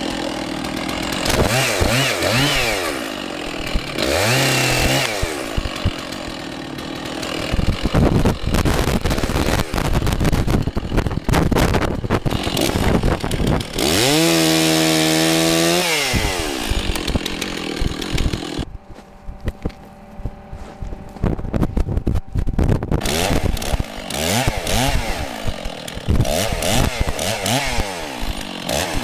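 Stihl chainsaw cutting through ice-downed branches, its engine revving up and down with each cut. Past the middle it drops to a quieter idle for a few seconds, then revs again.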